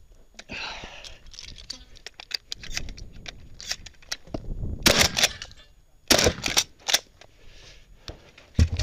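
Shotgun shots in two quick groups about halfway through, among lighter clicks and knocks of the gun being handled. A heavy thud near the end.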